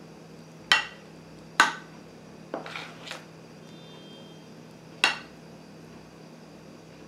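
Metal spoon clinking against a glass baking dish while spreading cream: sharp clinks, two loud ones in the first two seconds, a softer few around three seconds in, and another loud one about five seconds in.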